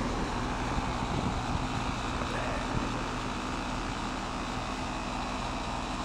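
Mismatched R-22 heat pump outdoor unit running in heat mode: compressor and outdoor fan running steadily with a low, even hum. The unit is building up too much head pressure, with the fan still on before the mild weather switch cuts it off.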